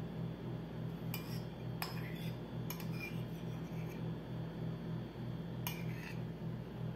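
Metal spoon clinking and scraping against a ceramic bowl while scooping out soft milk curds, with a few sharp clinks about a second, two seconds and nearly three seconds in, and again near six seconds. A steady low hum runs underneath.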